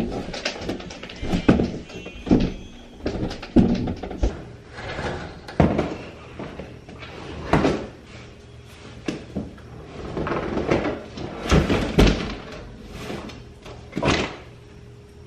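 Irregular knocks and thumps of bags and boxes being handled and set down while a car's trunk is being loaded.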